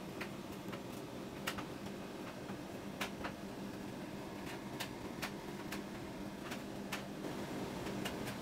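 Light, irregular clicks and taps of a glass and a plastic tumbler being handled, over a steady low hum.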